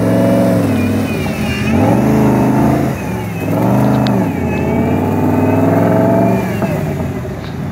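Off-road 4x4's engine revving hard under load as the vehicle claws through a deep mud pit. The revs rise and fall several times, with dips about a second and a half in and at about three seconds, then ease off near the end.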